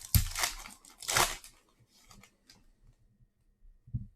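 Trading-card pack wrapper being torn open and crinkled: two loud rips in the first second and a half, then quieter handling and a soft thump near the end.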